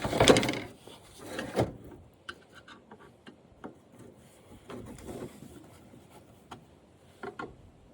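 Parts of a flat-screen TV being handled and pulled apart: a loud scrape right at the start and another about a second and a half in, then light clicks and rustling.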